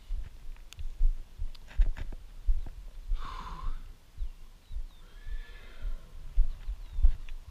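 A horse whinnies loudly about three seconds in, with a fainter call a couple of seconds later. Low, regular footstep thumps run underneath, about two a second.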